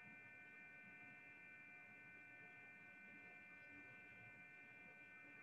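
Near silence: a faint, steady electrical hum with a high whine in the recording's background.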